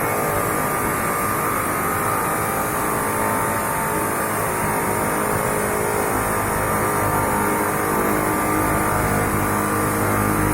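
Eibenstock motorised chop saw running steadily with a continuous motor whine; the low rumble grows heavier about halfway through.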